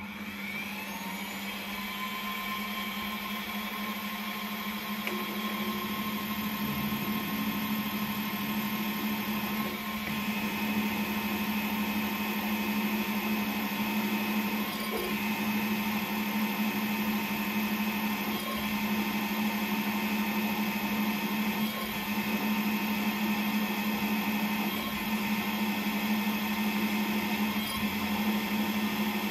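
Metal lathe starting up, spinning up over the first second, then running steadily with a steady hum and whine from its motor and gearing while a twist drill bores a hole in the workpiece.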